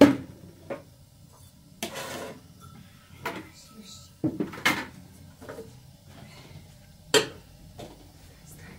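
Scattered knocks and clatters of a plastic bucket and metal pots being handled, a few separate strikes with a short scraping rush about two seconds in and the sharpest knock about seven seconds in.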